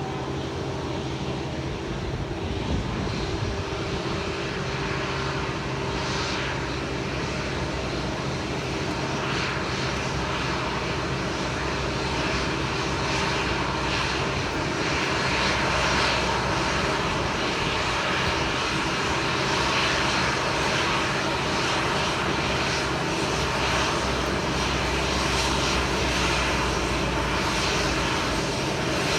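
Airplane engines running with a steady hum and rushing noise, growing gradually louder.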